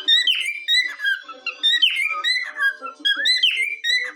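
Cockatiel whistling its song, a quick run of rising and falling whistled notes repeated in short phrases.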